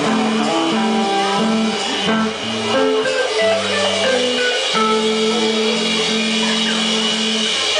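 Live rock band playing loudly: electric guitar and drums, with long held low notes.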